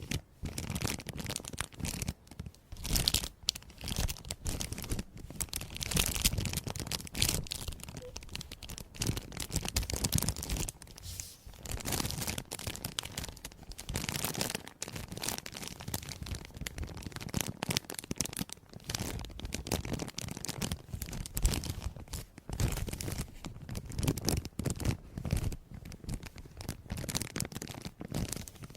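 Close-miked crisp crackling and crinkling, an irregular stream of dense little crackles with brief pauses between clusters.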